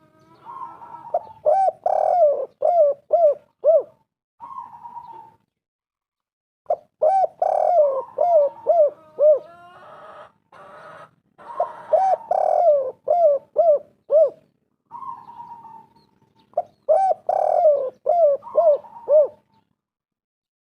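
Spotted dove (tekukur) cooing: four repeated song phrases, each a quick run of about six coos, with a short single coo between phrases.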